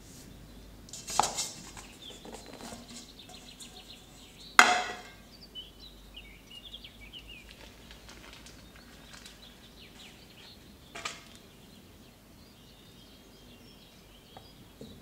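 Sharp clinks and knocks of kitchen utensils against dishes: three separate strikes, the loudest about four and a half seconds in with a short ring.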